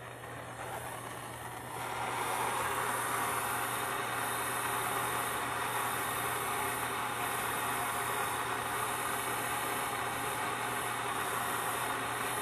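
Handheld gas torch burning with a steady hiss, its flame heating a copper pipe joint before soldering. The hiss builds over the first couple of seconds and then holds level.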